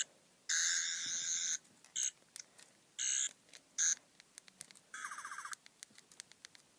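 Toy 11th Doctor sonic screwdriver sounding its electronic buzzing effect in about five short, high-pitched warbling bursts, the first about a second long, with small clicks between them.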